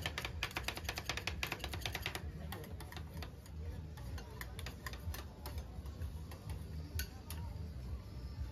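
Two metal spatulas chopping and tapping on the frozen steel plate of a Thai rolled ice cream stall. It is a fast clatter at about ten strikes a second for the first two seconds, then slower scattered taps and scrapes, over a low steady hum.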